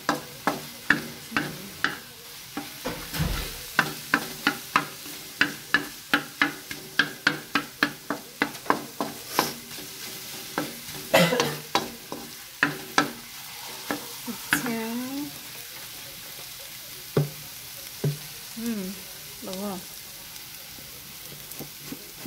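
Wooden spatula scraping and knocking against a metal wok as scrambled eggs with onion are stirred and broken up, over a faint sizzle of frying. The strokes come fast, about two to three a second, for the first half, then thin out to occasional scrapes.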